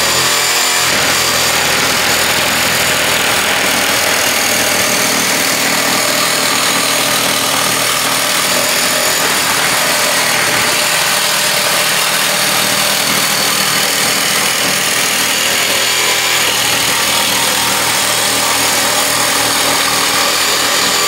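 Jigsaw mounted upside down under a jigsaw table, running steadily at speed as its blade saws through a chipboard panel fed along the fence.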